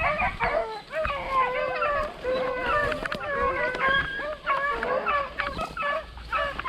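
A pack of beagles baying on a rabbit's trail, many dogs' voices overlapping without a break.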